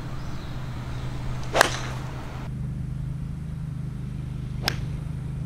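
Putter striking a golf ball off the tee: a sharp click, heard twice about three seconds apart, over a steady low hum.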